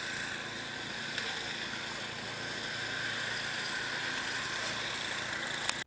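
A motor running steadily under an even hiss, with a short click near the end.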